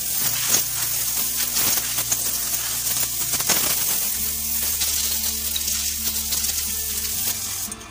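Loud crackling hiss with scattered clicks over background music with a low bass line; the hiss cuts off abruptly near the end.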